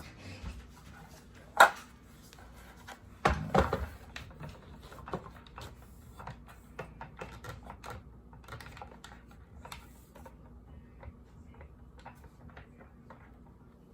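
Light clicks and knocks from handling a cordless circular saw and its parts. A sharp click comes about a second and a half in and a short cluster of louder knocks around three and a half seconds, then scattered small clicks.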